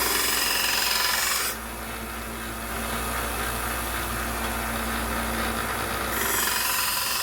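A 1x30 belt sander running steadily, its 220-grit belt grinding a steel knife blade in two passes. There is a hissing grind for about a second and a half as it opens and again near the end, with the belt's steady running hum in between.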